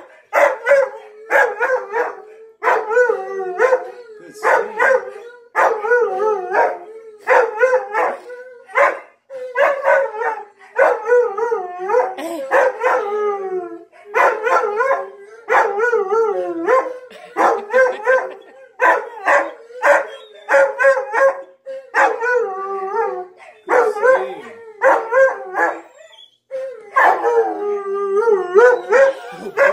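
Siberian husky howling in a long run of short, wavering howls, about one or two a second, with a short break near the middle and a longer one near the end.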